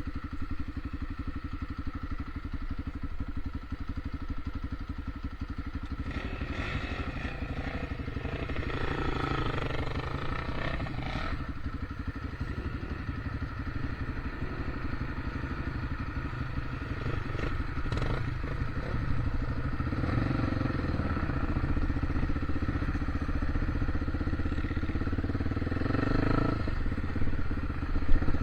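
Engine of an off-road motorbike running steadily under way, with some clatter in the first half, then working harder and louder from about two-thirds through.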